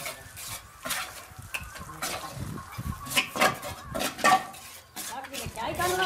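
Mason's trowel scraping mortar and clinking against bricks and a metal basin, in irregular strokes, busiest a little past halfway.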